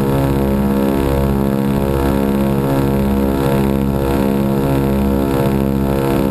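Ford Trimotor's radial engines running steadily in cruise flight, heard close beside a wing engine and its propeller. A loud, even drone with a low throb that swells about once a second.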